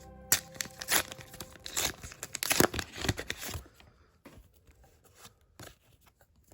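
A trading-card booster pack being torn open: loud tearing and crinkling of the wrapper for about three seconds, then fainter rustling and crackling as the pack is handled.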